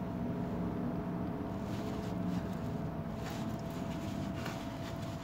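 Steady machinery hum with a couple of fixed tones, plus a few soft rubbing and handling noises from a hand wiping oil sludge out of a rotary vane vacuum pump's oil casing.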